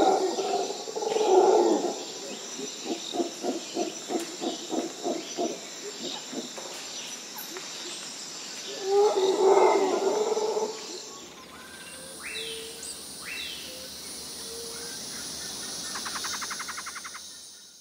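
Soundtrack of wild animal calls: loud calls at the start and again about nine seconds in, with a run of short, evenly spaced calls between them, over a steady high tone that drops out about eleven seconds in. A fast ticking follows near the end, and the sound fades out.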